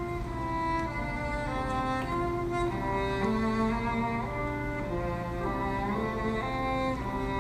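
Background music played on bowed strings, a melody of held notes moving in steps over a steady low drone.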